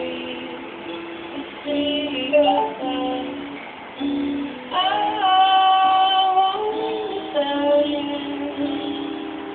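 Music: a song with a high singing voice over a light accompaniment, including one long held note about halfway through.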